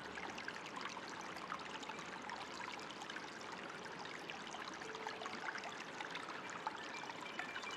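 Water trickling and splashing steadily, like a small stream, with many fine droplet sounds. A few faint, soft music notes sound over it, one about five seconds in and another near the end.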